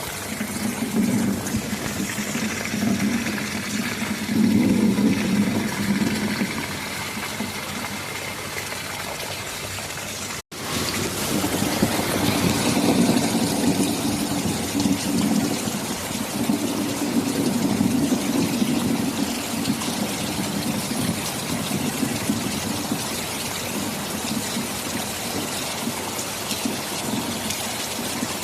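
Steady heavy rain with low rolling thunder that swells and fades twice. The sound cuts out completely for a split second about ten seconds in.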